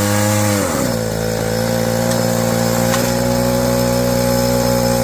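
Two-stroke chainsaw-type engine of a portable winch running. About a second in its speed drops to a lower, steady running speed.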